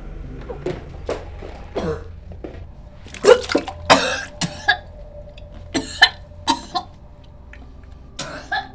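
A woman retching and coughing over a toilet bowl: a string of short, irregular heaves and coughs, the loudest a few seconds in.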